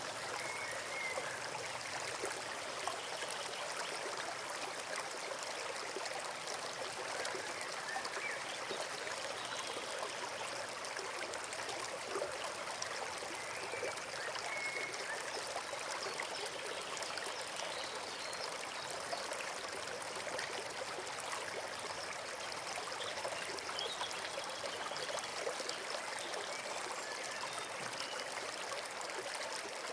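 Forest stream flowing steadily over stones, a continuous babbling and trickling of water, with a few faint high chirps now and then.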